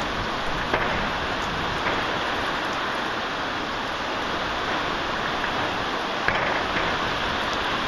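Heavy rain pouring down steadily, with a few sharper ticks of louder drops landing now and then.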